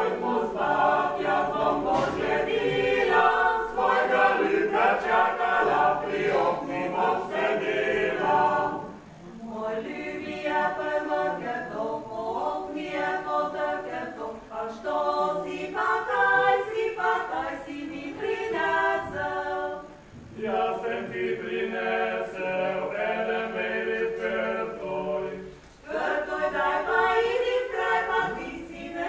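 A folk singing group of several voices sings a folk song together, phrase by phrase, with short breaths between phrases.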